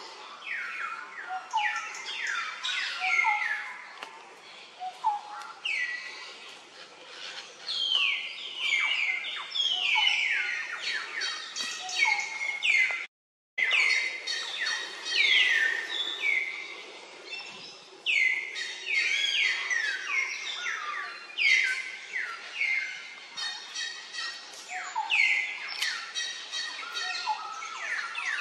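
Birds chirping: many short, high calls that fall in pitch, overlapping one another, with a brief dropout about 13 seconds in.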